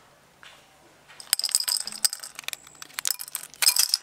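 Torn plastic candy packets crinkling and small sugar-coated chocolate buttons rattling as they are shaken out into a clay bowl, starting about a second in and going on in quick, irregular bursts.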